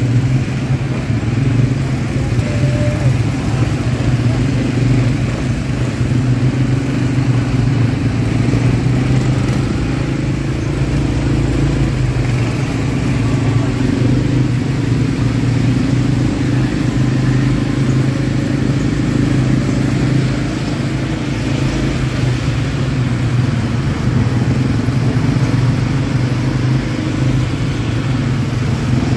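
ATV engine running steadily while being ridden, its low drone holding a nearly even pitch throughout.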